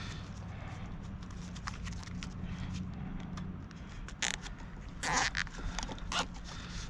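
Flat fiber-optic drop cable being handled and bent into a drip loop: soft rustling, then a few short scrapes in the second half, over a low steady hum.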